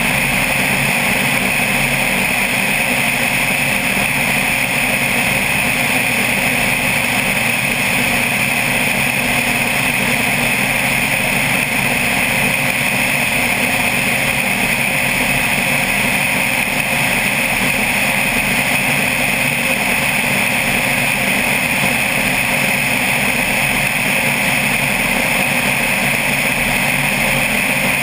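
Single-engine propeller plane in steady cruise: a constant drone from the engine and propeller, heard from a camera mounted outside the airframe, with rushing air mixed in.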